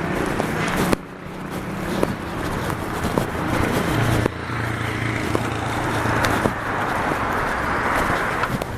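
City street traffic: a steady wash of passing car noise with a low engine hum and a few sharp clicks, dropping suddenly in level about a second in and again about four seconds in.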